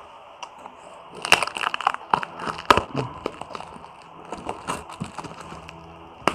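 A cardboard shipping box being cut and worked open by hand with a blade: an irregular run of crackles and sharp clicks, busiest about one to three seconds in, with a single sharp click near the end.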